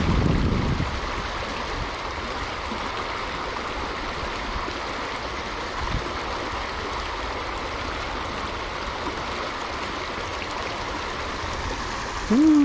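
Water of a small creek running steadily over rocks, an even rushing sound, with a low wind rumble on the microphone in the first second. Near the end, a brief loud voiced exclamation.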